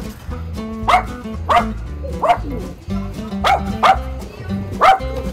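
A Samoyed and a Pomeranian barking at a neighbour: six short barks, about one a second, over steady background music.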